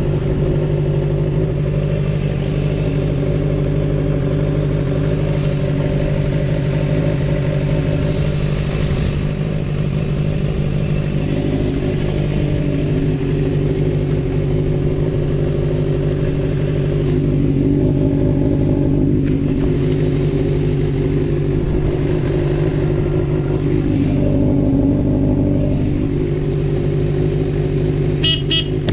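Suzuki Bandit 250V inline-four motorcycle engine running steadily through a Pretty Racing short exhaust, with the engine note rising slightly twice, once about two-thirds in and again later. A few sharp clicks near the end.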